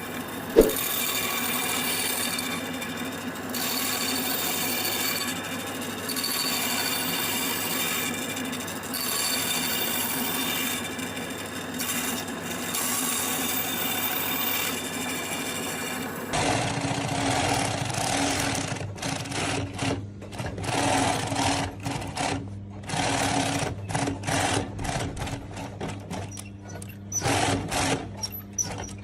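A small machine running steadily for about sixteen seconds, then an abrupt change to a different mechanical sound that starts and stops irregularly in short pulses.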